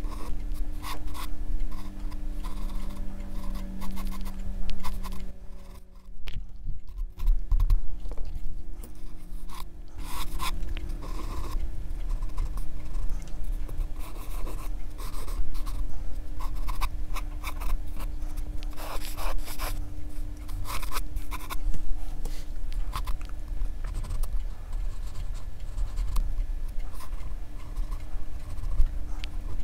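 Pencil graphite scratching across drawing paper in quick sketching strokes, with a brief pause about six seconds in. A steady low hum sits underneath.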